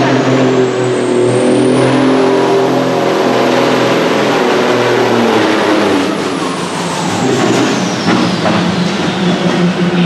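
Supersports-class pulling tractor's engine running flat out under load as it drags the weight-transfer sled. A high whistle climbs over the first few seconds, holds, then falls away through the second half.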